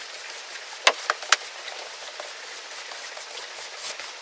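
Push broom sweeping loose hay across a concrete floor: a scratchy swish of bristles, with a few sharp knocks about a second in.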